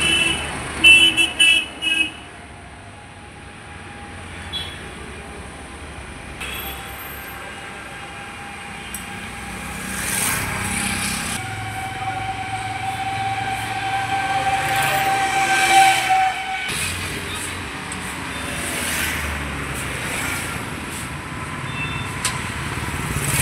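Road traffic with vehicle horns: three short horn toots about a second in, then steady traffic noise with a longer held horn note in the middle.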